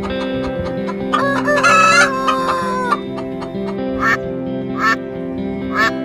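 A rooster crows once, one long call of about two seconds that falls off at the end, over steady background music. Short repeated animal calls, about one a second, follow near the end.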